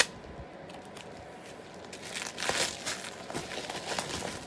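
Packaging crinkling and rustling as it is handled, in a run of short rustles starting about two seconds in.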